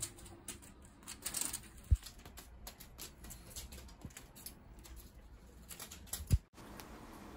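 Cat's paws and claws patting and scratching on a mat during play, in quick irregular light taps, with two dull thumps about two seconds in and near the end.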